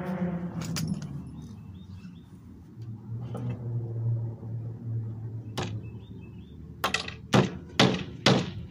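Hammer driving nails into a wooden speaker box: a few scattered taps, then four hard blows about half a second apart near the end.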